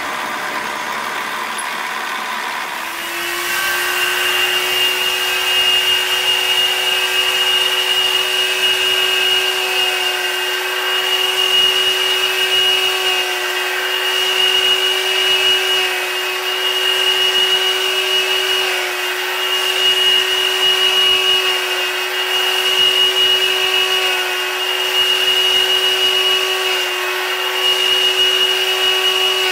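A steady machine-shop motor whine, a low hum with a bright high tone above it, which comes in about three seconds in and replaces a different milling sound.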